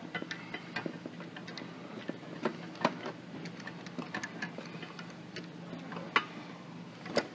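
Light, irregular metallic ticks and clicks as the forcing screw of a C-frame ball joint press is spun in by hand against its adapter cups. There are two sharper clinks, one about six seconds in and one near the end.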